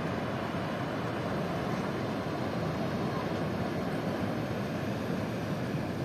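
Ocean surf breaking on a pebble beach: a steady, even rush of waves.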